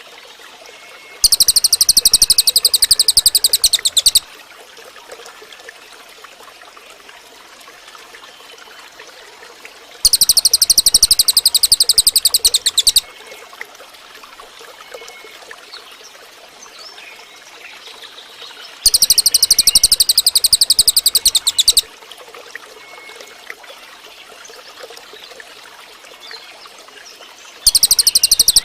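Cililin bird (racket-tailed treepie) giving a loud, high, very fast buzzing trill about three seconds long, repeated four times at roughly nine-second intervals, over a faint background of trickling water and soft chirps.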